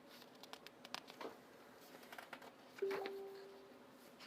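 Small clicks and rustles of an item being unwrapped and handled, then, a little under three seconds in, a sharp knock followed by a short ringing tone that fades over about a second.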